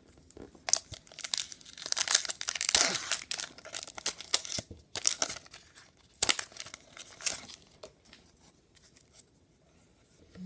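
Foil trading-card pack being torn open by hand, the wrapper crinkling in a dense burst early on, then a few shorter crinkles that die away.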